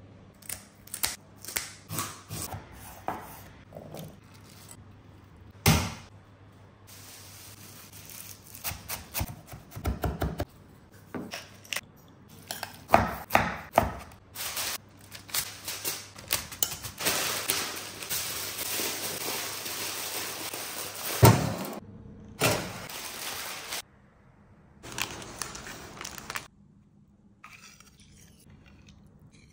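Kitchen prep sounds: a run of knife cuts and knocks on a wooden chopping board, then a longer stretch of steady scraping or rustling broken by one loud knock, and faint handling sounds near the end.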